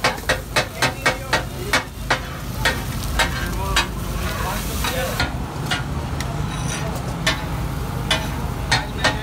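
Steel katakat spatulas clanging against a large iron griddle as fried fish is chopped and tossed, over the sizzle of the hot pan. The strikes come fast and even, about four a second, for the first two seconds, then thin out to scattered strikes.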